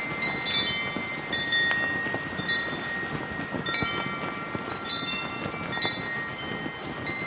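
Brass wind chimes blown by the wind, ringing in clusters of overlapping high tones about once a second. Under them runs a steady rushing noise of heavy wind with a flag flapping.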